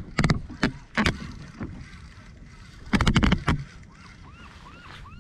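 Sharp knocks and clicks of fishing tackle being handled on a small boat while a fish is reeled in, with a dense loud burst of clicks about three seconds in. Near the end a short squeak starts, repeating about three times a second.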